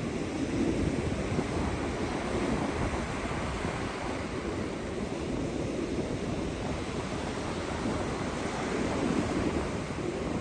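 North Sea surf washing onto the beach, a steady rush that swells and eases, with wind buffeting the microphone.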